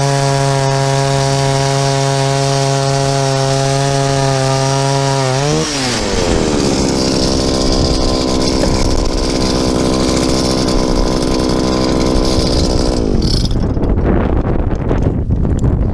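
Eskimo ice auger's engine running at steady high speed. About five seconds in it drops to a lower speed, and it winds down and stops near the end, leaving wind noise on the microphone.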